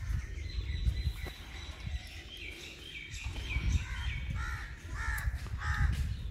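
Birds calling outdoors: a thin steady high note through the first half, then a run of about four short calls in the second half, over a low rumble.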